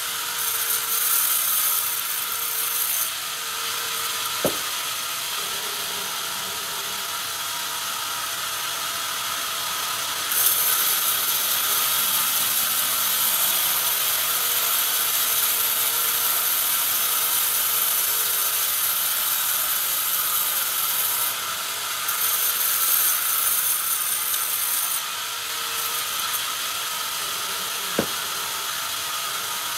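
Sawmill band saw running, its blade cutting along a log on a moving carriage with a steady high hiss that grows louder and brighter for a long stretch in the middle. Two sharp knocks, one about four seconds in and one near the end.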